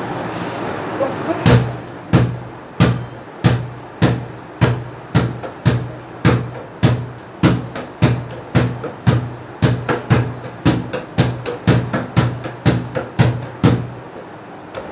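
A fully inflated Nivia football dribbled by hand on a hard floor: more than twenty bounces, each a hollow thud with a low ring. They start about a second and a half in and speed up from about one and a half to about two and a half a second.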